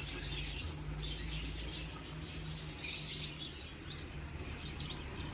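Small birds chirping and twittering, many short high calls throughout, over a low steady hum.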